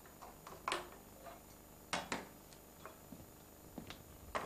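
Cups and dishes being gathered onto a tray on a wooden café table: a few scattered light knocks and clinks, the loudest about a second and two seconds in.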